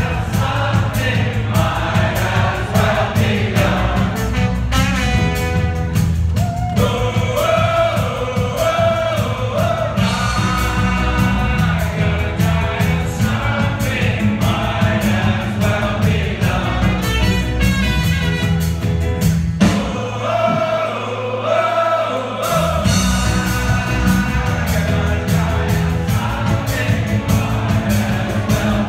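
Live band playing a song with drums, guitars, brass and singing. About twenty seconds in, the drums and bass drop out briefly, leaving one held low note, then the full band comes back in.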